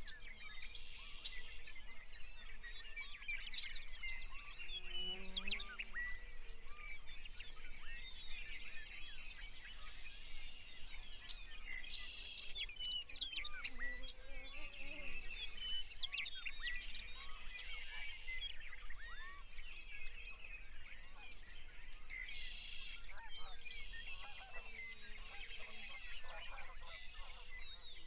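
A chorus of birds singing: many quick, overlapping chirps, whistles and trills, unbroken throughout.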